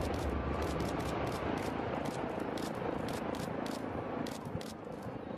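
Dying rumble of high-rise tower blocks collapsing in an explosive demolition, with many sharp clicks and crackles scattered through it. It fades out near the end.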